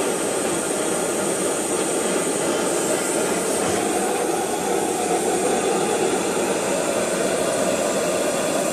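BRS-3000T canister gas stove burning at full flame under a heat-exchanger pot, a steady loud roar. It is the noisier of two such stoves, with a fiercer flame and a top that glows.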